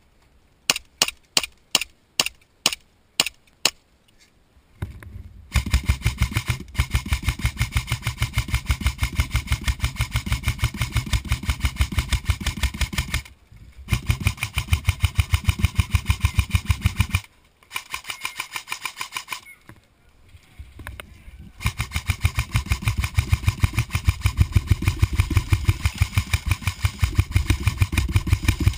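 An airsoft pistol fired about eight times in quick succession, then an airsoft M4 rifle firing long full-auto bursts, a fast, even buzzing stream of shots broken by a few short pauses.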